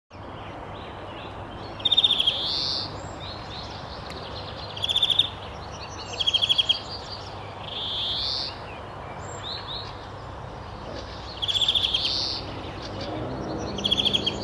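A bird calling again and again: each phrase a fast, buzzy trill followed by a short rising note, repeated about every two to three seconds over a faint steady background hiss.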